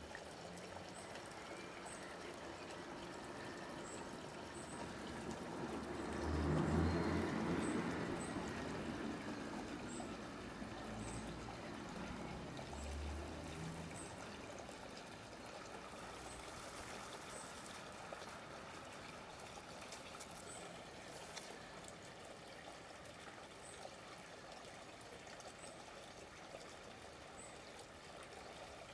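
Steady trickling, water-like rushing noise, with a louder swell that builds about five seconds in, peaks near seven seconds and fades by about twelve. Faint high ticks recur every second or two.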